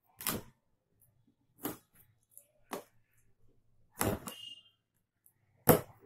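Cardboard box being cut open with a knife: a few short scraping and ripping noises as the packing tape is slit and the flaps are handled, the loudest near the end.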